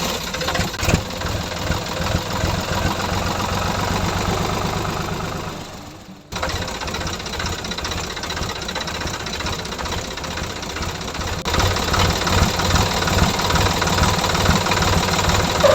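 Mini tractor engine chugging with a rapid, even knock. It fades about six seconds in and comes back abruptly, then runs on steadily.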